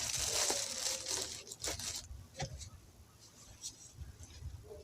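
Packaging crinkling and tearing as a new tool is unwrapped: a loud rustle for about the first two seconds, then a few light crinkles and clicks.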